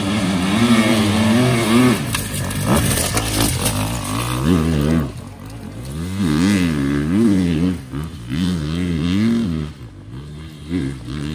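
Enduro motorcycle engine revving up and down over and over as the rider works the throttle, with brief lulls about halfway and near the end.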